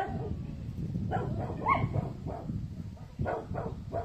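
Dogs barking: a series of short, separate barks from about a second in, over a steady low rumble.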